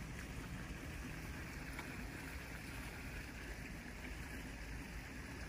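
Steady outdoor background noise: a low rumble with an even hiss above it, and no distinct event standing out.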